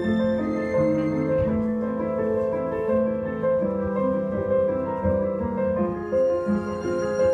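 Instrumental music led by piano, a slow run of held notes.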